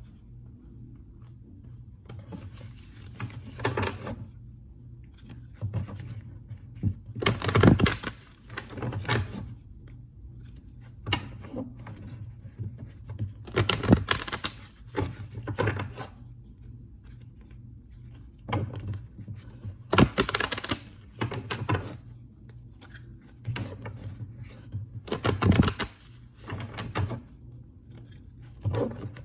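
Tarot cards being shuffled by hand: short spells of rapid clicking and slapping, five or six of them a few seconds apart, over a steady low hum.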